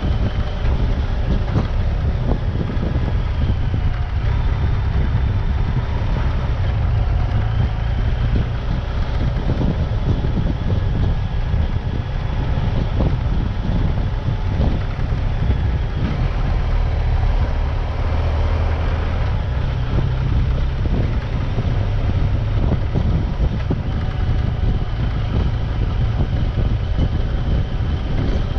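Off-road vehicle running steadily while being driven, its engine and tyre noise under a heavy low rumble of wind on the action-camera microphone.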